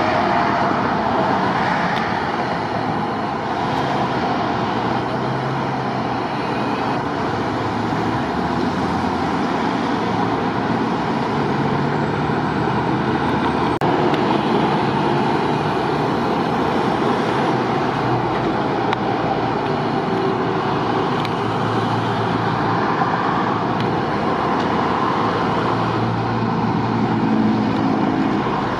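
Steady multi-lane highway traffic: cars and trucks passing at speed, their tyre and engine noise blending into one constant wash, with the low hum of heavier vehicles coming and going.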